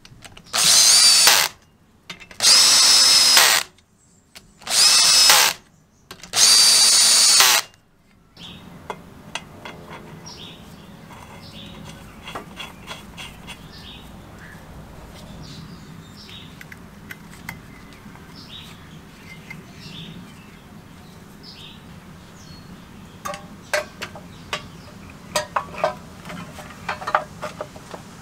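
Power drill with a socket, whining in four short bursts of about a second each as it runs the cylinder head bolts down on a small Briggs & Stratton engine. After that come only faint clicks and light knocks of parts being handled, with a cluster of sharper clicks near the end.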